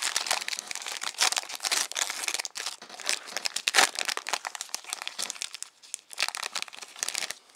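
Trading card pack's wrapper being torn open and crinkled by hand, an irregular run of crackles.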